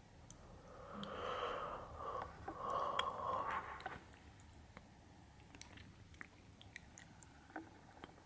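Two long, breathy open-mouthed breaths close to the microphone, then a few faint wet mouth clicks through the rest.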